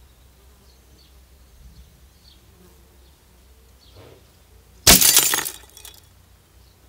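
Clear glass incandescent light bulb shattering as an air gun pellet hits it: one sudden sharp crack about five seconds in, followed by breaking and tinkling glass that dies away within about a second.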